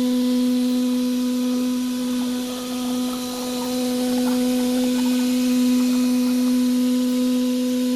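CNC glass machining center running with a steady hum, with a few faint ticks about halfway through.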